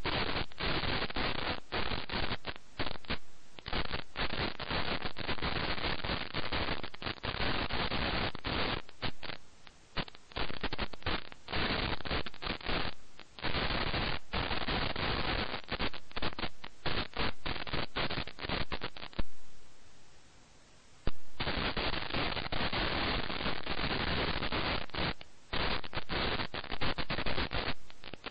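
Loud, harsh static hiss that keeps cutting in and out in rapid, irregular bursts, with one pause of about two seconds roughly two-thirds of the way through.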